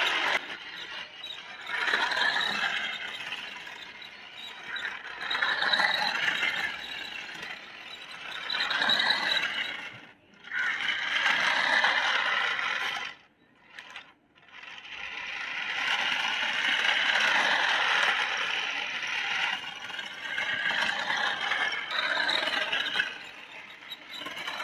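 Battery-powered toy remote-control car driving in bursts on rough concrete: its small electric motor and plastic gears whir while its hard plastic wheels scrape and rattle on the ground. The sound swells and fades every few seconds as the car starts, turns and stops, and cuts out briefly twice near the middle.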